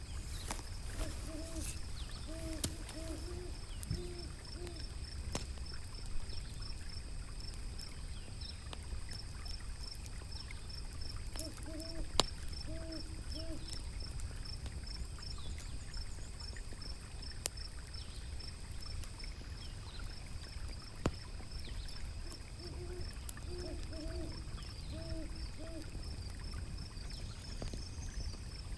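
Owl hooting in three short bouts of several hoots each: near the start, in the middle and near the end. Under it runs a steady low rumble of river water, with a few sharp pops from a crackling wood fire and a steady high pulsing chirp.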